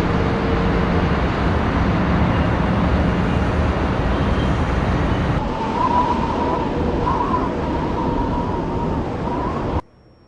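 A loud, steady rushing noise like wind or surf. About halfway through, a faint wavering tone comes in over it, and it all cuts off suddenly shortly before the end.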